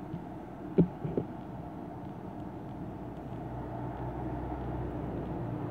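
Low engine rumble with a steady hum, growing louder over the last few seconds, with two short sharp sounds about a second in.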